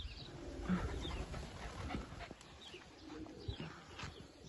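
Racing pigeons cooing, with short high falling chirps about once a second.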